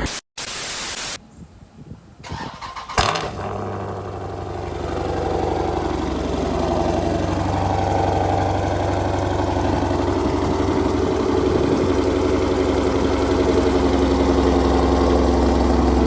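A car engine starting about three seconds in with a sharp catch, then running steadily at idle, loud, its level creeping up slightly.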